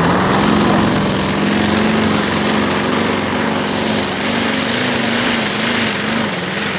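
Modified pulling tractor's engine running flat out under full load while dragging the weight sled. Its pitch holds high and starts to waver slightly about halfway through.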